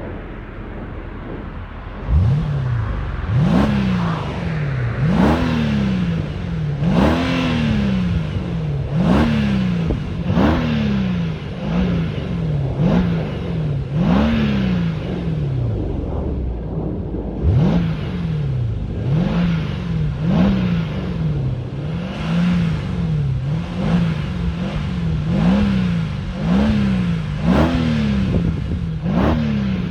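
Mercedes-Benz W212 E500's V8 on its stock exhaust, idling and then revved in short blips, about one every one to two seconds, each rising quickly and falling back to idle.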